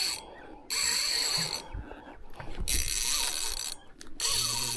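Spinning reel cranked in quick bursts of about a second, gears whirring, with short pauses between: the rhythm of fast jigging.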